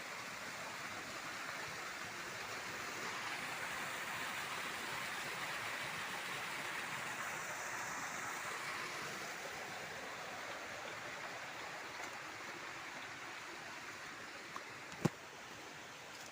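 Steady rush of flowing river water, swelling for a few seconds and then easing off, with a single sharp click near the end.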